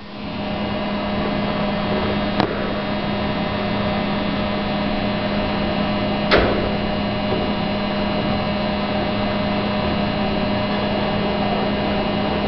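Passenger lift car travelling down, a steady hum inside the car, with two short clicks about two and a half and six seconds in.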